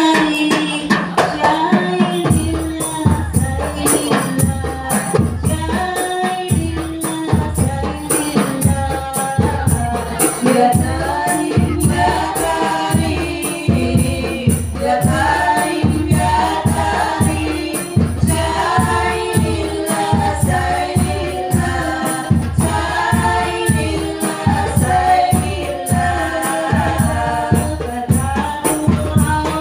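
A group of women singing a sholawat together through microphones, with rebana frame drums joining about two seconds in and beating a steady rhythm under the voices.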